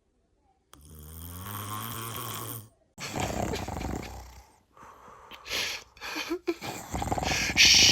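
Snoring: a long, low rumbling breath about a second in, then a rougher noisy breath, followed by a run of shorter, choppier snores toward the end.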